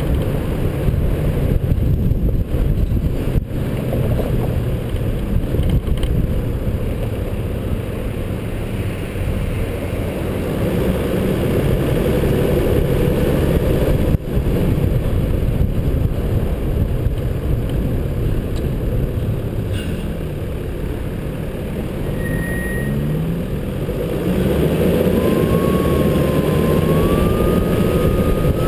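Steady low rumble of a 4WD driving, engine and road noise picked up by a camera mounted on the outside of the vehicle. It gets louder a few seconds before the end, and a thin wavering tone rises slowly over the last few seconds.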